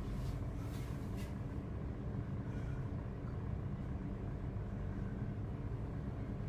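Steady low mechanical hum of kitchen background, with a couple of faint taps about a second in.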